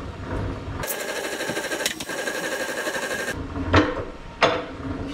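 Bridgeport milling machine being cranked by hand: a rhythmic mechanical rattle for about two and a half seconds that starts and stops abruptly, then two sharp metal clicks with a short ring.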